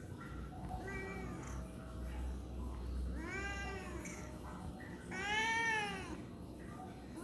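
Young tabby cat meowing three times in complaint, each meow rising then falling in pitch; the first is faint and short, the last the loudest and longest.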